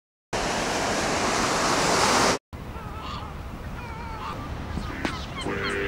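A loud rush of noise for about two seconds that cuts off suddenly, then gulls calling over the wash of surf, their cries wavering up and down.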